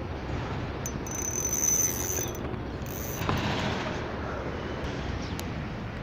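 Shimano Nasci 500 spinning reel being worked by hand: a high mechanical whirring for about a second, then a sharp click about three seconds in.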